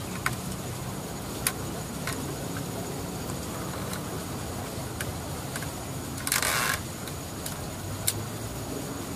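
A few sharp, isolated clicks spread through the stretch, with a half-second hissing rustle about six seconds in, over a steady low hum.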